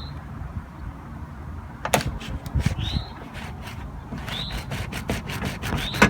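Car door latch linkage inside a 1997 Toyota Camry door being worked by hand: a sharp click about two seconds in, then a quick run of clicks and rattles with several short squeaks, the loudest click near the end. A latch rod has come out of its broken plastic retaining clip, which is why the inside handle will not open the door.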